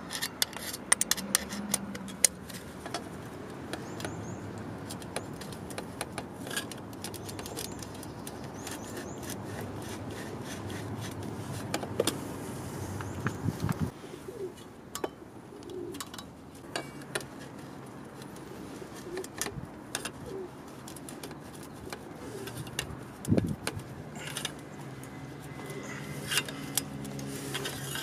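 Scattered sharp metallic clicks and clinks of an adjustable wrench and steel motorcycle exhaust parts being handled and fitted, thickest in the first few seconds and again near the end.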